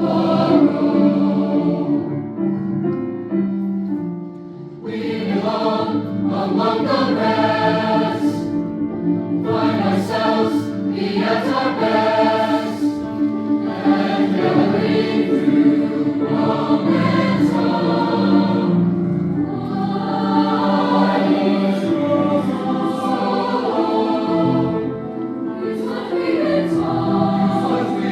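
A large mixed choir singing in parts, full and sustained, with a brief softer moment about four seconds in before the voices swell back.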